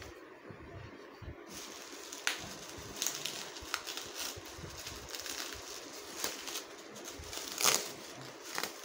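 Plastic bubble wrap rustling and crinkling as hands handle and pull it open, with scattered sharp crackles.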